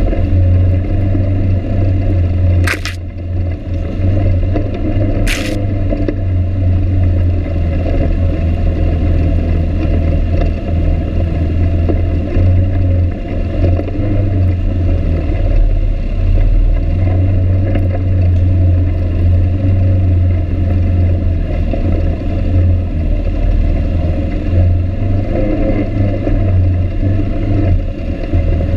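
ATV engine running steadily at low speed over a rocky trail, with the rough rattle and scrape of the machine jolting over rocks and two sharp knocks about three and five seconds in.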